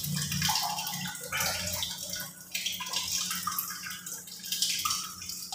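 Water trickling and splattering from the leaking threaded joint between a brass float valve and a PVC pipe fitting, with irregular drips and spatters.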